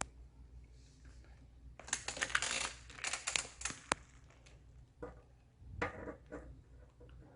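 Compressed-sawdust firewood burning, with irregular clusters of crackles and sharp clicks: a dense run about two seconds in, a sharp snap near four seconds, and another patch of crackling around six seconds.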